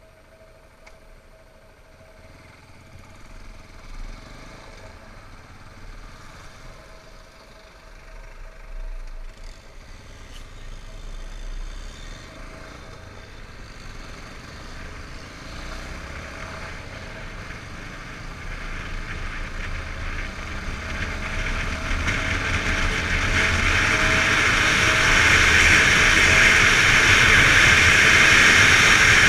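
Yamaha XTZ 250 Lander's single-cylinder engine running as the motorcycle is ridden. Its note wavers with the throttle under a rushing hiss that grows steadily louder through the second half, as wind on the helmet camera's microphone builds with speed.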